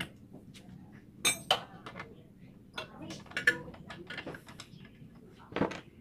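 Metal hand tools clinking against the flywheel of a Honda Supra motorcycle engine: a few sharp metallic clinks at irregular intervals.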